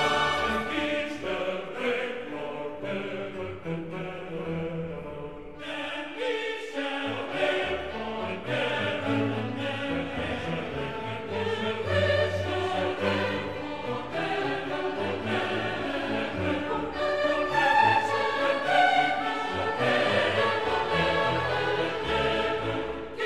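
Background music: a choir singing over orchestral accompaniment in slow, sustained chords.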